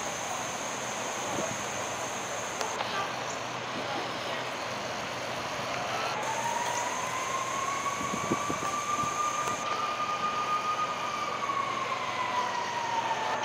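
An emergency-vehicle siren sounding one slow wail: about halfway in it rises, holds high for a few seconds, then begins to fall near the end. A steady hiss runs underneath.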